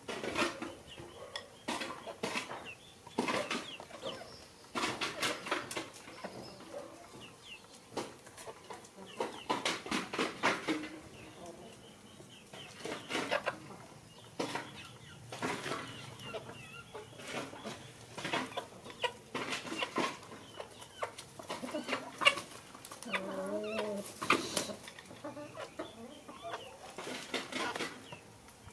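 Chopsticks and a metal spoon clicking and scraping against a ceramic bowl during a noodle meal, in irregular taps throughout. Chickens cluck in the background, with one longer call late on.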